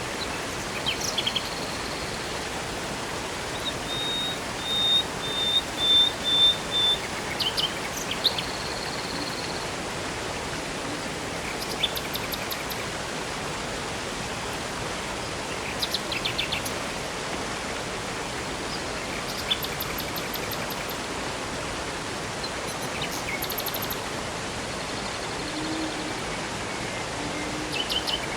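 Steady rush of river water, with songbirds calling over it: a run of about six short, even whistled notes about four seconds in, and scattered chirps and short trills throughout.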